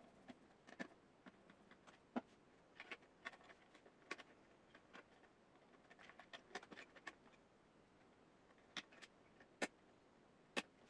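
Irregular light clicks and taps, a few sharper than the rest, as of small hard parts being handled and fitted during work on a dehumidifier.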